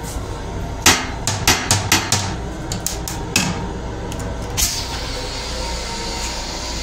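A molded plastic toilet seat on a train being lifted, with a run of sharp plastic clacks and knocks over a few seconds. After that a steady hiss starts, over the low rumble of the moving train.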